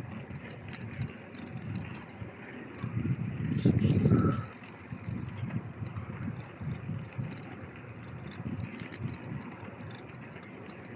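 A bicycle being ridden, with an uneven low rumble and light clicking rattles. It grows louder for a moment about four seconds in.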